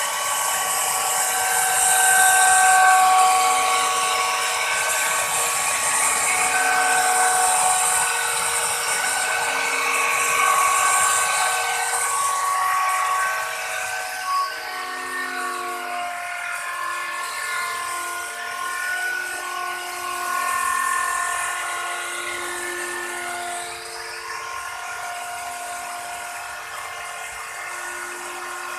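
Crown electric plunge router running at high speed and cutting a groove into a solid wood panel: a steady high whine whose pitch dips and recovers as the bit takes the wood. It gets somewhat quieter about halfway through.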